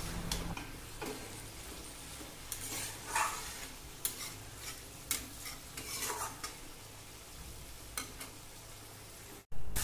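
A spatula stirs and scrapes bottle gourd and shrimp around a kadai in irregular strokes over a faint sizzle, as the gourd's released water cooks off and the oil begins to separate.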